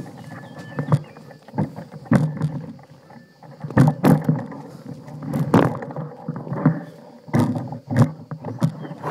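Mountain bike ridden over a bumpy dirt trail: irregular knocks and rattles as the bike jolts over the ground, over a low rushing noise from the tyres and air.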